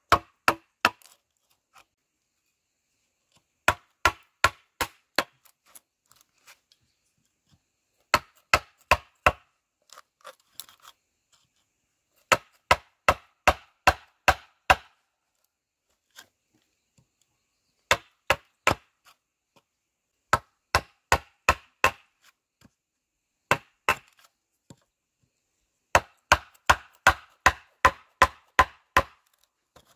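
Chopping with a blade against wood: runs of several sharp strokes, about three or four a second, broken by pauses of a few seconds.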